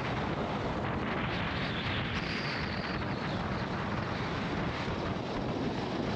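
Steady rush of wind on the microphone of a KTM 390 Adventure riding at road speed, with the motorcycle's running and road noise underneath.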